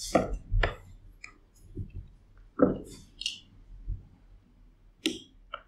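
Plastic Lego bricks clicking and knocking on a tabletop as they are handled and pressed onto a model: about six separate sharp clicks, the loudest about two and a half seconds in.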